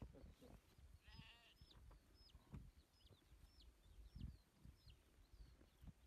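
A sheep bleats once, briefly and faintly, about a second in. Short high chirps follow, about two a second, over faint low knocks.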